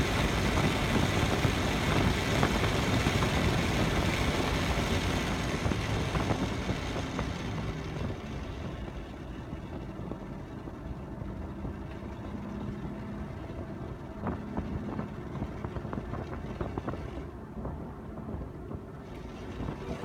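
Lamborghini's engine and exhaust, loud for the first six or seven seconds, then easing to a quieter rumble. A few sharp pops come through later on.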